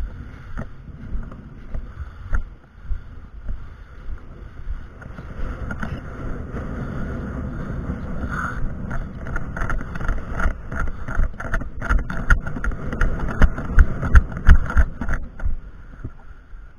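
Footsteps and jostling gear as a player runs across a grass lawn, with wind rumbling on the microphone. The thumps of the footfalls grow louder and closer together in the second half.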